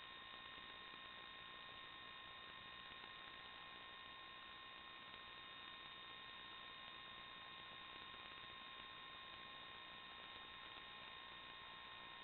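Near silence: faint steady hiss with a few thin, unchanging high tones, the empty audio channel of an analog FPV video recorder rather than any drone motor sound.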